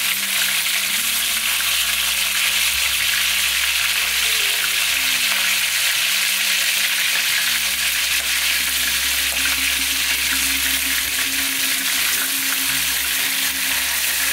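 Barracuda steaks sizzling steadily in hot oil in a non-stick frying pan, with a slotted spatula scraping and shifting the pieces as they are turned.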